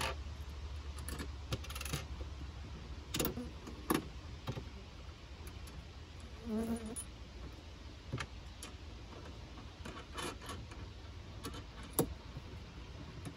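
Heavy battery cables with metal ring lugs being handled and fitted: scattered light metallic clicks and clinks, a few sharper ones near the start, about four seconds in and about twelve seconds in.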